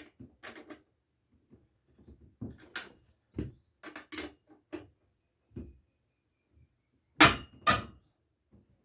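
Irregular clicks and knocks of work on a bicycle as its chain is tightened, with two louder knocks about seven seconds in, half a second apart.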